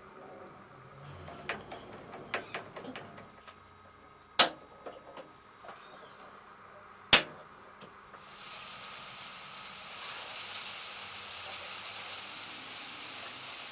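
Small metal parts of a vintage Vespa's handlebar grip and control cable being handled and fitted: a run of light clicks and taps, then two sharp, loud clicks about four and seven seconds in. From about eight seconds on, a steady hiss.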